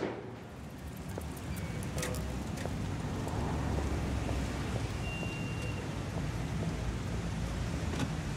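City street ambience: a steady low rumble of traffic, with a few faint clicks, a brief high tone about five seconds in, and a sharper click near the end.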